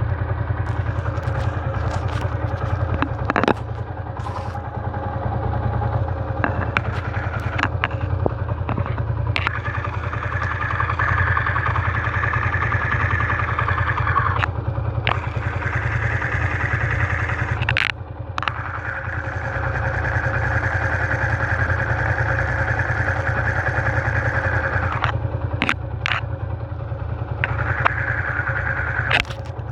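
Motorcycle engine idling, picked up through a screwdriver tip pressed against the engine as a makeshift mechanic's stethoscope, so the mechanical noise from inside the engine is amplified. A brighter clatter comes and goes several times, with sharp clicks as the tip is shifted between parts.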